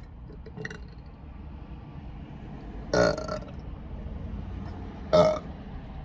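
A woman burping twice, two short burps about two seconds apart.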